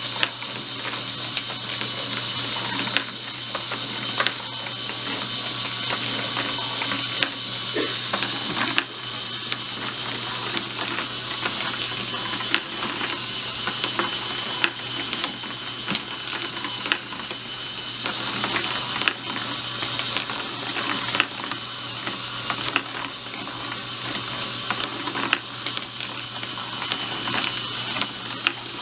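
Motorized marble run running: a steady motor whine and hum under frequent irregular clicks and clacks of marbles and the lift mechanism.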